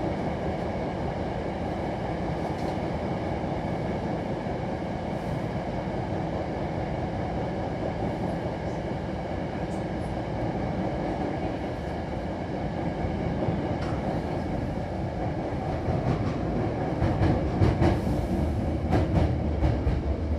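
Hankyu commuter train running, heard from inside the passenger car: a steady rumble of wheels on rail. In the last few seconds it grows louder and heavier, with a run of sharp clacks from the wheels.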